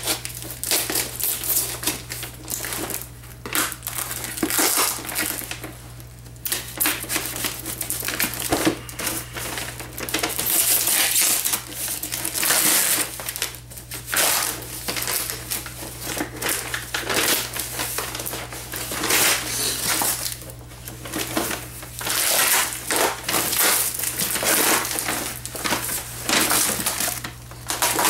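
Cardboard shipping box being slit open with a kitchen knife and unpacked: irregular scraping, tearing and crinkling of cardboard, tape and packing material.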